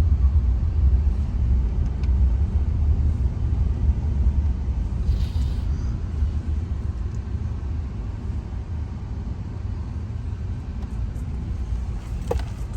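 Steady low rumble of a moving car, heard from inside the cabin, with a brief hiss about five seconds in.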